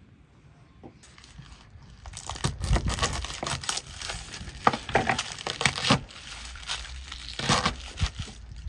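A whole garlic bulb being cut at its base and crushed apart into cloves by hand on a wooden chopping board: dry papery skins crackling and crinkling, with a few knocks on the board. It starts about two seconds in.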